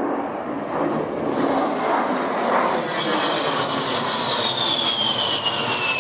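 An aircraft flying past, its engine noise building, with a high whine that slides steadily down in pitch from about halfway through as the plane passes.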